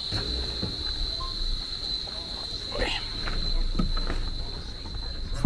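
A chorus of jungle insects buzzing in one steady high-pitched drone, which cuts off suddenly at the end.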